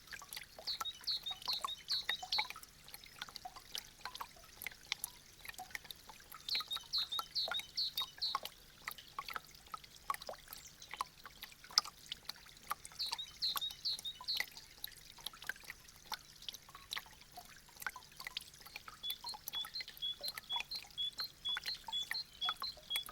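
Meltwater from thawing icicles dripping and trickling in quick, irregular drops. High chirping notes come in a few short bursts, with a run of evenly spaced chirps near the end.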